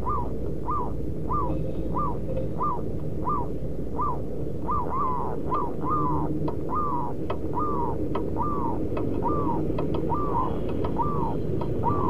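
Zebra dove giving a long run of short staccato coos, each rising then falling. They come about two a second and grow longer and closer together after about five seconds, like the kerot call doves give when squaring up to a rival. Sharp faint clicks come in the second half, over a steady low background hum.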